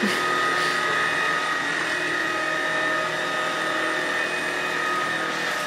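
Cordless stick vacuum running steadily, a constant high whine over the rush of its motor and airflow.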